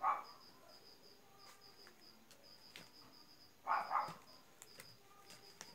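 A cricket chirping in short, high-pitched pulses that repeat throughout, with a few brief louder sounds: one right at the start and two close together a little after the middle.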